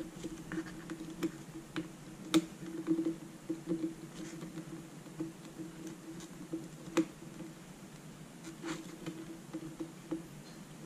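Small scattered clicks and taps as a tool and fingers press an adhesive LED strip onto the edge of a plastic LCD backlight frame. Two sharper clicks come about two and seven seconds in, over a faint steady hum.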